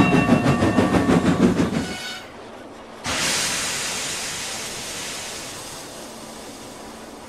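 Steam locomotive sound effects: quick rhythmic chuffs that die away about two seconds in, then a sudden hiss of escaping steam about three seconds in that slowly fades.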